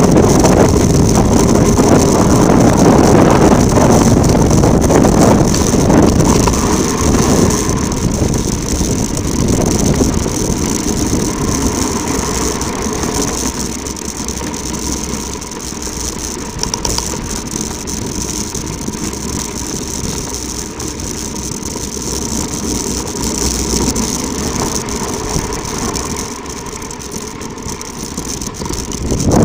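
Wind rushing over the microphone and a rolling rattle from a fast downhill ride on a rough track. It is loudest for the first seven seconds or so, then eases to a lower, steadier rush.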